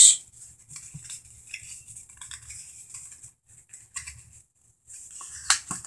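A sheet of paper rustling and crinkling as it is folded and creased by hand into an origami unit: soft scattered crackles, with a louder crackle about five and a half seconds in.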